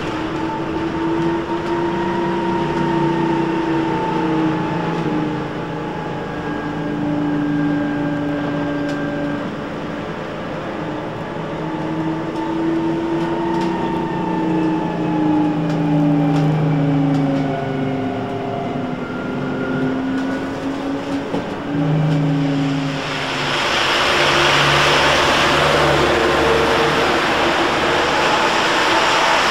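Electric trolleybus traction motor whining from on board, its pitch gliding up and down as the bus speeds up and slows. About 23 seconds in, a loud steady hiss of rain and wet traffic on the street takes over as a trolleybus passes.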